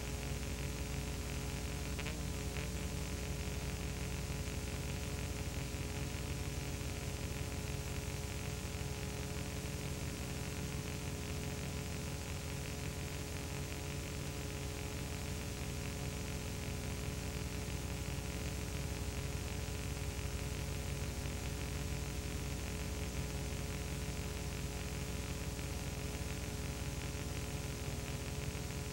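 Steady hiss with an electrical mains hum and its overtones, the noise of a silent film transfer; a faint click about two seconds in.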